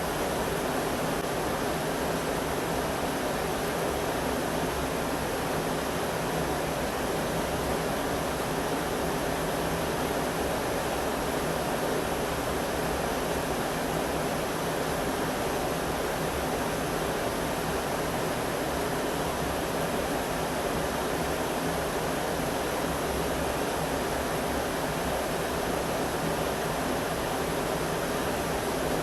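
Steady rushing of river water, an even unbroken noise with no separate events.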